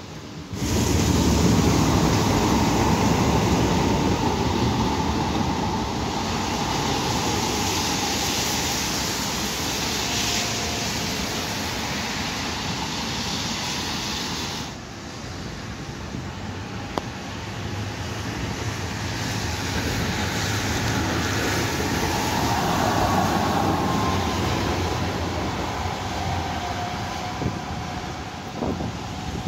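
Tram and road traffic passing on rain-soaked streets: a steady hiss of wheels and tyres through water, with a faint falling whine in the second half. The sound changes abruptly less than a second in and again about halfway through.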